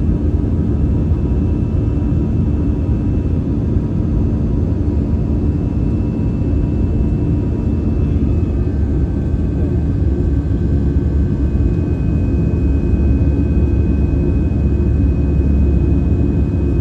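Airliner engines droning steadily as heard inside the passenger cabin during climb-out, a dense low rumble. A faint high tone over it shifts slightly in pitch about eight and a half seconds in.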